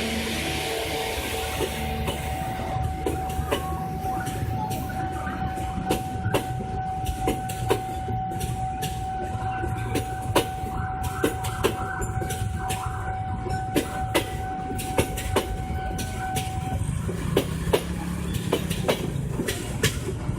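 Passenger train rolling past, its wheels clicking over the rail joints in a long run of sharp clicks over a low rumble. A steady high tone sounds alongside and stops near the end.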